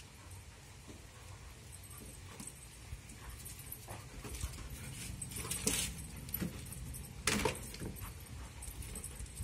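Doberman puppy scuffling in play against a person, its metal chain collar jangling, with two louder sharp clatters around the middle and toward the end.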